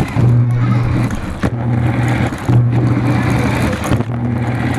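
RC car driving, heard close up from a camera mounted on it: its motor hums in spurts that start and stop several times, with the rattle of the car running over the ground and a few sharp knocks.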